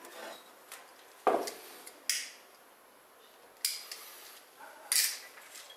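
Wooden matches struck against the box three times, each giving a sharp scrape and brief flare, after a single knock about a second in.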